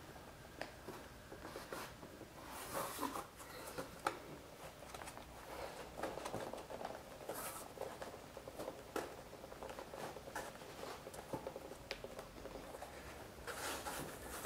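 Hands rubbing and smoothing the leather seat of a saddle: soft, irregular scuffing and rustling of leather, with a few sharp clicks, the loudest about four seconds in.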